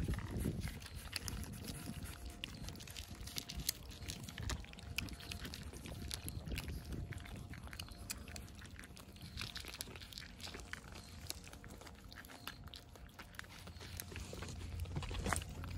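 Several cats eating from plates close by: rapid, irregular licking, chewing and lapping clicks of wet food and kibble, over a low rumble.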